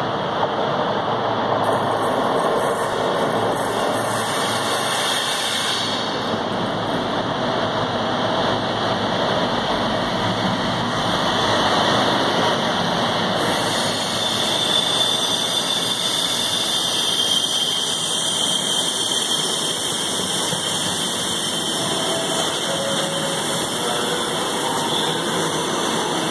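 Class 60 diesel locomotive running as it approaches and passes at low speed, followed by loaded log wagons rolling by. About halfway through, a high steady squeal of wheels on the rails joins the rumble as the wagons pass.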